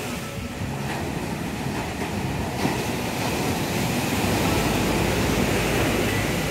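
Sea surf breaking and washing up a sandy beach, a steady rushing noise, with a low rumble that grows about two-thirds of the way in.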